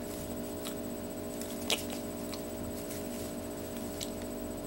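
Quiet room tone with a steady hum and a few faint short clicks, the sharpest about a second and a half in.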